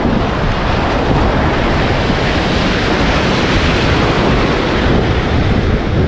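Steady rush of ocean surf breaking and washing through shallow water, with wind buffeting the microphone.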